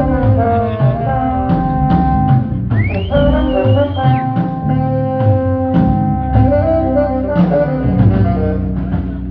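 Live band music from a sound check: sustained horn and guitar notes over a bass line and drums, with one high note sliding up and holding for about a second, about three seconds in.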